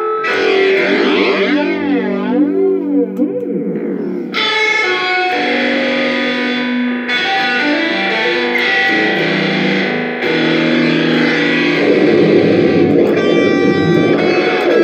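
Electric guitar played through a circuit-bent Joyo Classic Flanger pedal: sustained chords with the flanger's sweep rising and falling over them, deepest in the first few seconds. New chords are struck about four seconds in and again every few seconds after.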